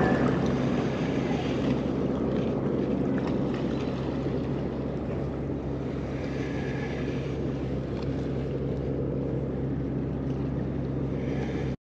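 A boat motor running with a steady, even low drone over a wash of water and wind noise.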